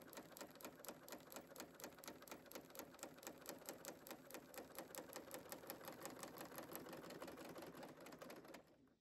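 Serger (overlock machine) running, sewing a two-thread flatlock blanket stitch through fabric and wash-away stabilizer, with a faint, steady, rapid mechanical clatter. It stops shortly before the end.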